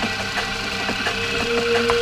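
Milling machine running, a steady motor hum with light ticking; a higher steady tone comes in about a second in.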